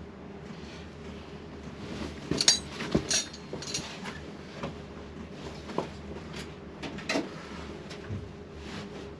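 Metal tools and parts clinking and clanking as they are handled, with a quick cluster of clanks a couple of seconds in and scattered single clicks after, over a steady low hum.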